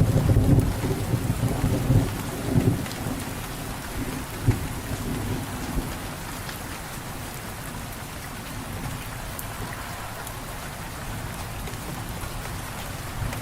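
Steady rain falling, with a rumble of thunder in the first few seconds that fades away, leaving the rain alone.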